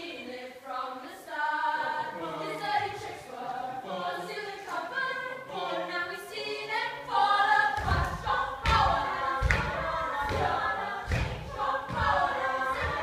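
Group of voices singing together, with a run of low thumps in the second half.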